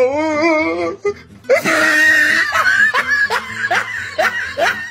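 Laughter, a run of short rising ha's about two or three a second, with music behind it.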